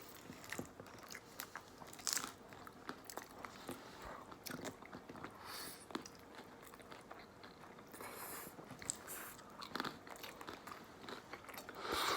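Pizza being chewed and bitten close to the microphone: wet mouth-smacking with many small crunches and clicks.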